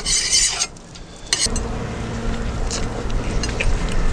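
A scraper scraping across the hot carbon-steel plancha, pushing debris through its holes, in a couple of strokes during the first second and a half. After that comes a low steady hum with a few light clicks.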